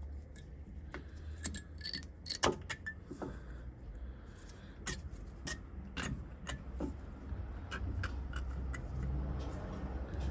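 Metal disc-brake parts clicking and clinking as they are handled and fitted by hand, in scattered irregular taps, the loudest about two and a half seconds in, over a low steady hum.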